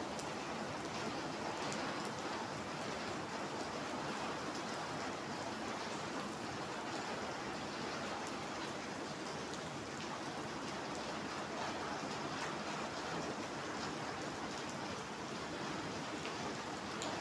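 Steady rain falling on wet paving stones and puddles, an even hiss with a few faint sharper drip ticks.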